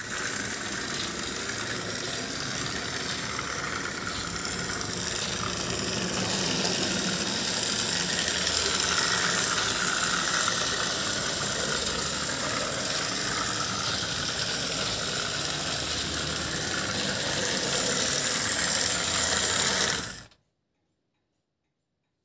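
Egger-Bahn H0e narrow-gauge model locomotive running on 9 mm track: a steady whirring and rattling of its small motor, gearing and wheels. It cuts off suddenly about twenty seconds in.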